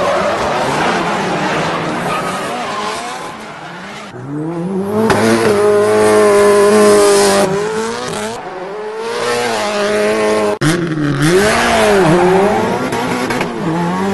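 Car engine revving up and down over loud tyre squeal and skidding, as in drifting or racing. The sound breaks off for an instant about ten and a half seconds in, like an edit cut.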